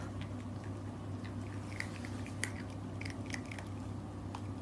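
Puppy chewing a treat eaten from a hand: small crunchy clicks scattered through, thickest in the middle, over a steady low hum.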